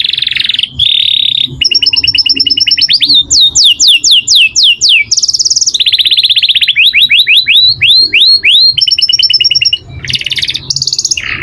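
Domestic canary singing a long song of fast trilled phrases. Each phrase is a quick string of repeated notes: buzzy rolls, a run of sharply falling whistles, then a run of rising ones.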